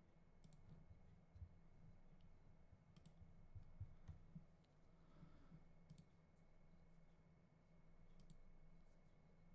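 Near silence: room tone with a low hum, broken by a few faint computer-mouse clicks a couple of seconds apart.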